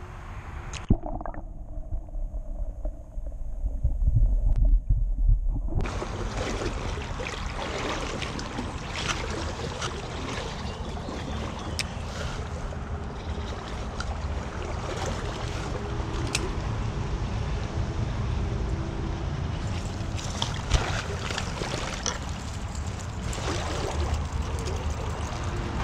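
River water running high after heavy rain, a steady rushing noise that starts abruptly about six seconds in. Before it there is a low rumble of wind or handling on the microphone with a few knocks, and sharp clicks turn up now and then over the water.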